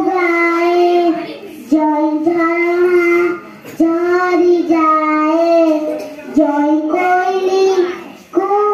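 A young girl singing a patriotic song solo into a microphone, unaccompanied, in phrases of long held notes with short breaths between them.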